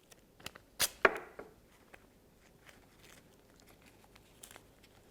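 Adhesive tape being pulled off and torn, two sharp rips about a second in, followed by faint handling sounds of tape and paper.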